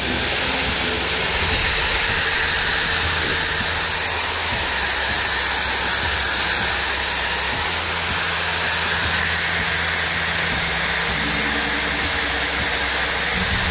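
Handheld angle grinder fitted with a sanding pad, running: a steady high whine over an even rushing hiss.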